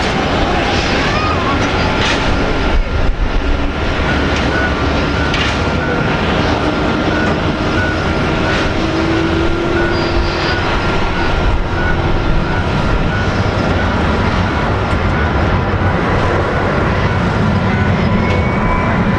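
Jet engines of a Boeing 777-300 airliner running: a loud, steady rush with faint thin whining tones over it.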